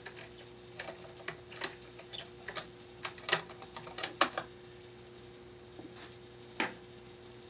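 Screwdriver and wire clicking and tapping against a switch-outlet combination device as the white neutral wire is fastened under its silver terminal screw: an irregular run of small clicks, loudest three to four seconds in, then a single sharper click near the end.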